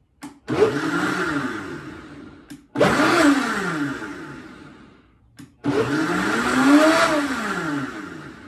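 High-speed countertop blender blending coconut almond milk in three pulses of two to three seconds each, a brief click before each pulse; in each, the motor's pitch rises and then falls away.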